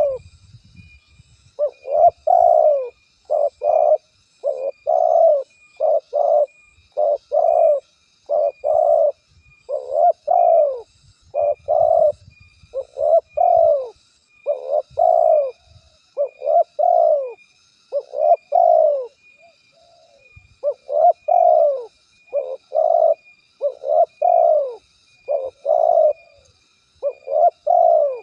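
Spotted dove cooing: a long, steady series of low coos, each note dipping in pitch at its end, with brief pauses near the start and about two-thirds through. Faint high chirping runs underneath.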